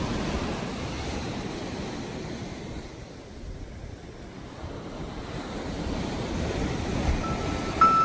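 Ocean surf breaking and washing up a sandy beach, swelling, easing off for a moment, then building again. Near the end a steady tone comes in.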